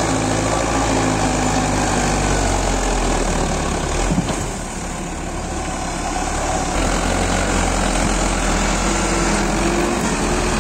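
Tractor's diesel engine running under the work of a front loader pushing a pile of corn stalks. The engine note eases off about four seconds in and picks back up a couple of seconds later, with a single clack as it eases.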